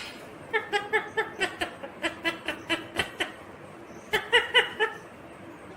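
Ringneck parrot chattering in three runs of quick, short, laugh-like notes, with a couple of sharp clicks.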